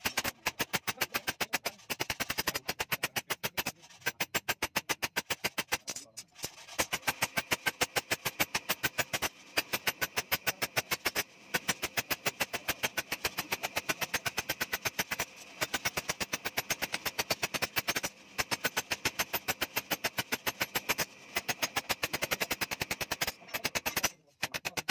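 A hand hammer beating a long steel blade on a small anvil, quick even blows about five a second, in runs broken by short pauses.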